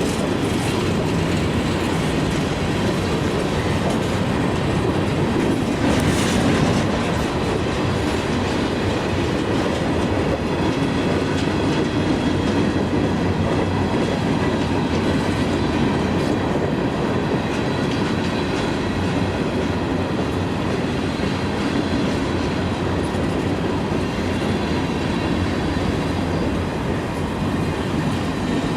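A CSX freight train rolling past, its wheels making a steady rumble and clickety-clack on the rails, with a brief sharp clank about six seconds in.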